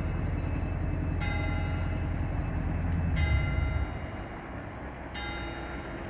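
Church bell tolling, three strokes about two seconds apart, each ringing on. A low rumble sits underneath and fades out about four seconds in.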